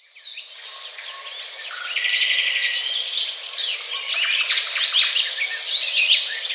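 A chorus of several birds chirping and singing at once: many quick, high calls and trills overlapping over a faint background hiss. It fades in over the first second and stops abruptly at the end.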